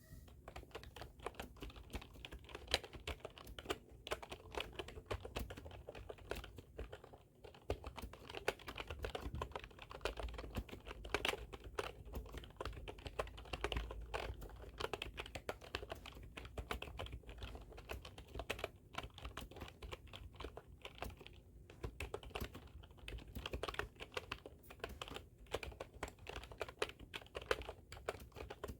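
Computer keyboard being typed on steadily, a fast stream of key clicks broken by a few brief pauses.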